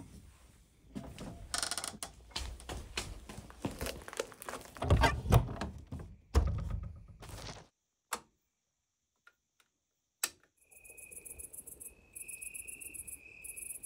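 Footsteps, knocks and handling noise from someone moving about and climbing, with heavy thuds about five and six seconds in. After a brief silent gap with a couple of clicks, crickets chirp in rapid, regular pulses.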